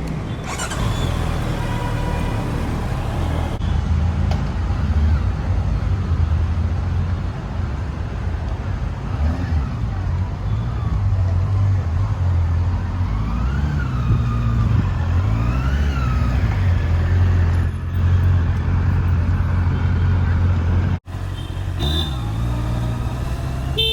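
Motorcycle riding in traffic: a steady, loud low rumble of engine and wind, with a sound that rises and falls in pitch a few times about two-thirds of the way through.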